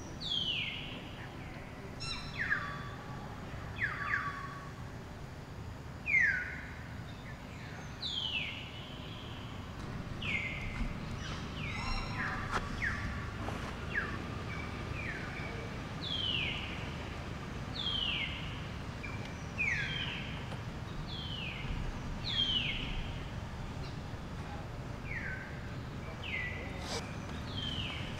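Repeated short high calls from an animal, each sliding down in pitch, about one every one to two seconds over a steady low outdoor background.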